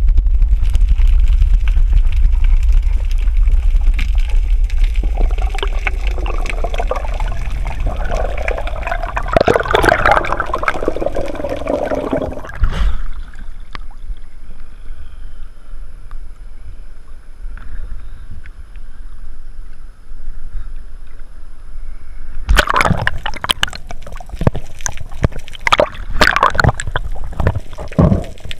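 Underwater recording of an undersea earthquake: a deep rumble through the water that fades over the first dozen seconds, with gurgling water over it. It drops off sharply, and from about two-thirds of the way through there are loud irregular bursts of bubbling and knocking.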